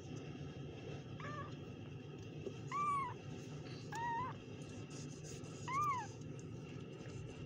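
Very young kittens mewing: four short, high-pitched mews, each rising then falling in pitch, spaced a second or two apart, the first one faint.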